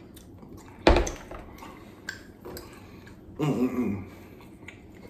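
Heavy glass bowl full of steamed clams set down on a wooden table with one sharp knock about a second in, followed by a few light clicks of clam shells being handled and a short vocal sound.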